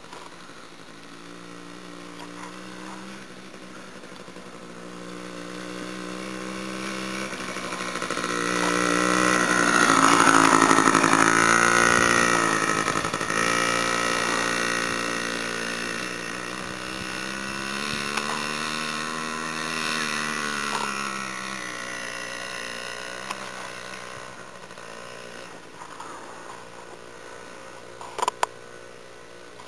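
Small dirt bike engine running, growing louder as it comes close about ten seconds in and dropping in pitch as it moves off, then revving up and down again around twenty seconds before fading. A couple of sharp clicks near the end.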